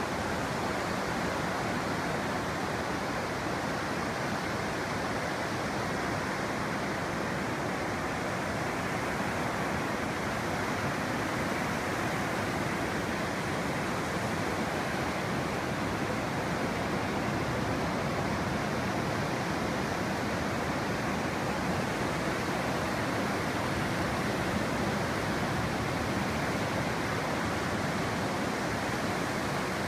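Ocean surf breaking and washing up onto a flat sandy beach: a steady rush of waves.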